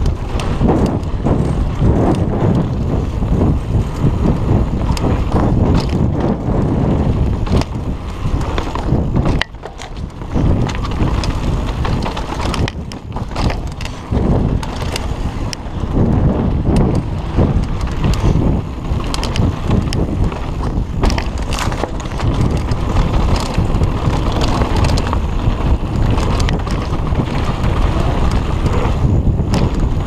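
Mountain bike ridden along a dirt trail: tyres rumbling over the ground and the bike rattling over bumps, with wind on the microphone. The sound drops briefly about nine and a half seconds in.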